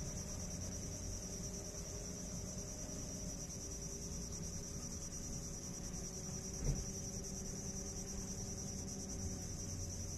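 Steady high-pitched insect chorus, with a low steady rumble underneath and one soft knock about six and a half seconds in.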